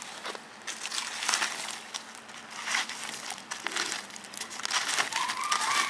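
Wood fire crackling while a stick rakes and pokes the hot embers and charcoal around a foil-wrapped fish, giving irregular crunching, scraping and crinkling clicks.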